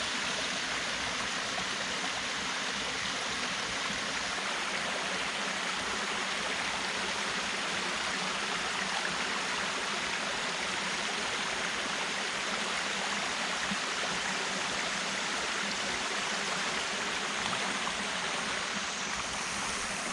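Steady rushing of running water, even throughout with no distinct events.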